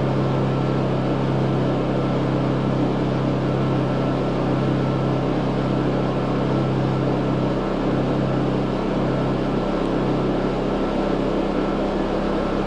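Two Honda portable generators running steadily, their small four-stroke engines warming the oil before an oil change. The lowest part of the hum turns slightly uneven in the last few seconds.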